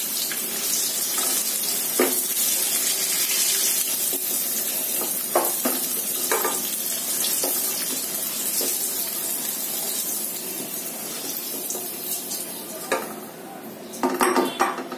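Potato pieces frying in hot mustard oil in a wok, a steady sizzle, with a few knocks of a spatula against the pan as the pieces are lifted out. The sizzle thins near the end, then flares briefly louder.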